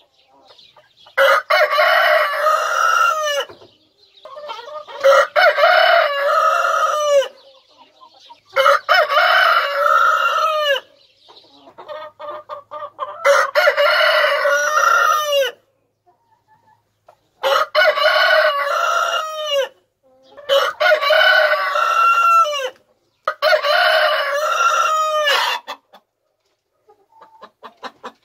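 Rooster crowing over and over: seven long crows, each about two seconds long and dropping in pitch at its end, coming every three to four seconds. Hens cluck softly in the gaps between crows.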